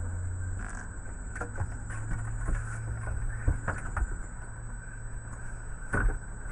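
A few light clicks and taps of small plastic toy parts being handled on a table, over a steady low hum and a faint high whine. The sharpest click comes near the end.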